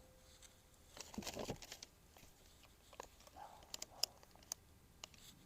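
Faint handling noises of pliers working a small metal fastener: a short rustle about a second in, then a few scattered light clicks.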